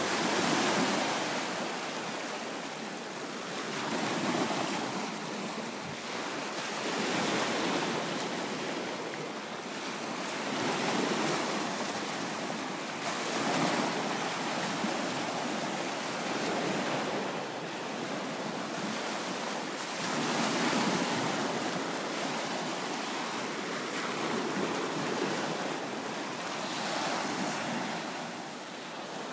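Small bay waves breaking and washing up a sandy beach, the surf swelling and falling back about every three to four seconds.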